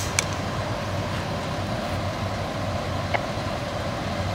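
Fire engine's diesel engine idling with a steady low drone, with two short clicks about a quarter second in and about three seconds in.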